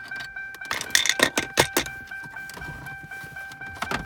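The car's warning chime dinging over and over, a steady electronic tone, as when the key is left in the ignition with the door open. About a second in come several loud clicks and clatters of dash trim and parts being handled.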